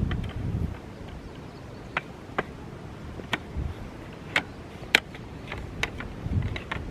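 Irregular sharp clicks and knocks, about seven spread over a few seconds, as camp gear is handled.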